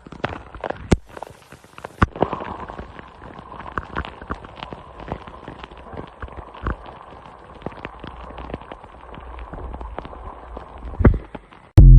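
Irregular small clicks and taps over a faint steady hum, with a loud thump near the end.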